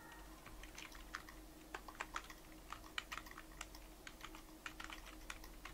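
Typing on a computer keyboard: a quick, irregular run of key clicks, starting just after the beginning.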